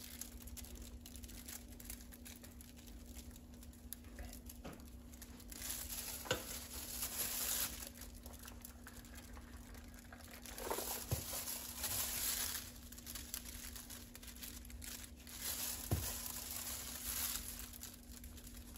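Spice shakers shaken over raw pork chops, in three short hissing bursts a few seconds apart, with the crinkling of disposable plastic gloves and a few light clicks.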